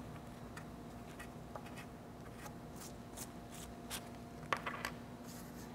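Faint scraping and rustling as a coin scratches dried acrylic-and-detergent paint off a painted card, then the card is picked up and handled.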